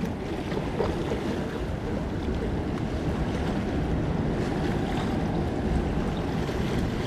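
Ocean surf washing steadily onto the beach, mixed with wind rumbling on the microphone.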